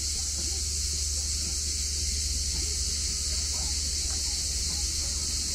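Cicadas singing in a steady, unbroken high-pitched chorus in the olive and pine trees, with a low steady rumble underneath.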